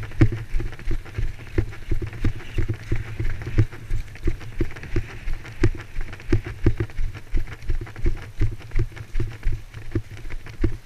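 Running footsteps on a paved path, heard as regular dull thumps about three a second through the wearer's body-mounted camera, with a light click of gear on each step.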